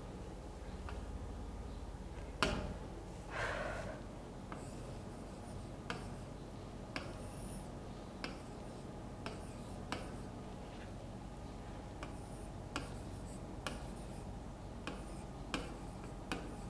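Faint writing on a board: a pen tapping irregularly against the surface as strokes start and end, with one louder tap a couple of seconds in and a short scratch soon after, over a low steady hum.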